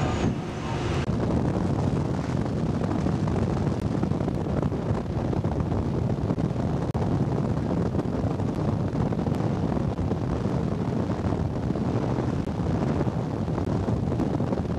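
Steady wind noise buffeting the microphone on a ship's open deck at sea, a low, even rumble.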